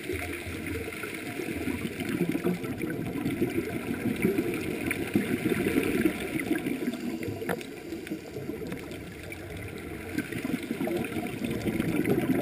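Underwater recording of a scuba dive: a gurgling, rumbling wash of water and diver's bubbles that swells and eases, with faint scattered clicks.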